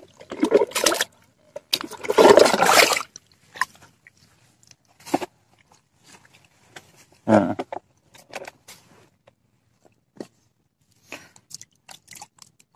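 Water splashing as it is scooped into a plastic bucket, in two noisy bursts in the first three seconds, then a shorter splash and scattered scrapes and knocks from handling the bucket.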